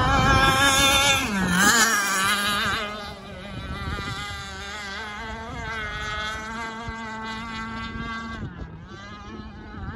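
Enforcer Stingray RC hydroplane running at speed: a high-pitched motor whine. The pitch dips and swings back up about a second and a half in, and the whine is quieter and steadier from about three seconds on.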